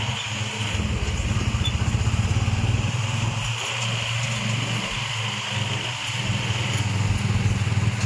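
Vehicle engine running steadily on the move, with a steady hiss of wind and road noise over it.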